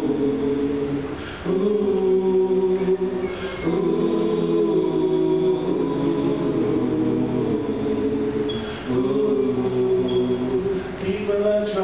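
Five-man male vocal group singing a cappella in close harmony through microphones: held chords in phrases, with brief breaks between them about a second and a half, four seconds and nine seconds in.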